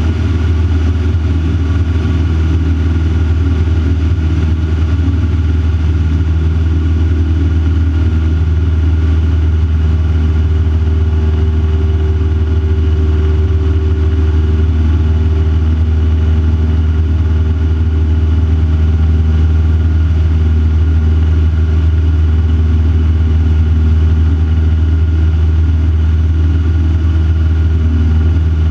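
Van's RV-4 light aircraft's piston engine and propeller droning steadily in cruise flight, heard from inside the cockpit.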